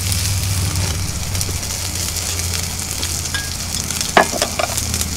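Beef tongue and pork offal sizzling on a wire yakiniku grill, a steady hiss with a faint low hum underneath. A brief voice sound comes about four seconds in.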